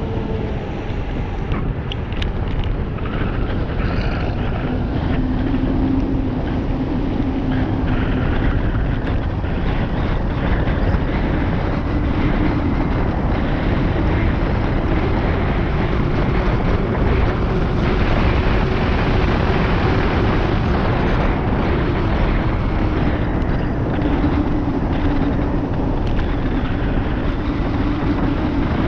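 Steady wind rush on the microphone and tyre noise on asphalt from riding downhill at about 40 km/h, with a low hum underneath.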